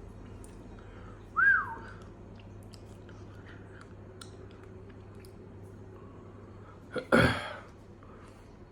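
A man reacting to the burn of a super-hot chili: one short whistle that rises and falls about a second and a half in, then a loud, forceful burst of breath near the end, with faint chewing and small mouth clicks between.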